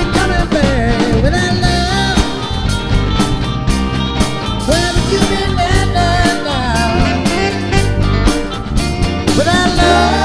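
A rock band playing with a male lead vocal: drum kit, electric bass and electric guitar keep a steady groove under the singing.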